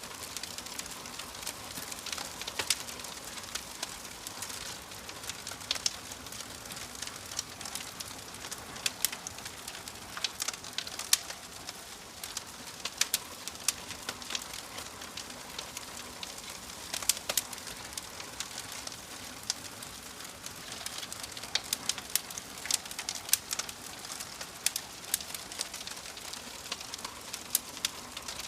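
Wood fire crackling: a steady hiss with frequent, irregular sharp pops and snaps, several a second, some much louder than the rest.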